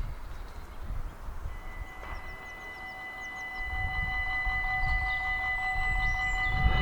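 Dutch level-crossing warning bells start ringing about a second and a half in, a steady rapid ringing that grows louder as more tones join. Short bird chirps come briefly, and a low rumble runs underneath.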